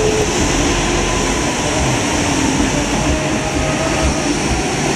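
Boeing 767-300ER freighter's twin jet engines running at low taxi power: a steady rushing noise with faint whining tones.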